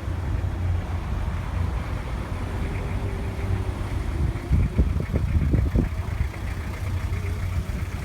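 Car driving along a road: steady low engine and road rumble, with a few brief low thumps about halfway through.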